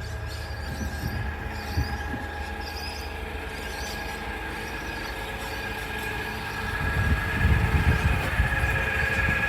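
Garbage truck engine running steadily, with a steady high whine over its low hum. A louder rumble comes in about seven seconds in.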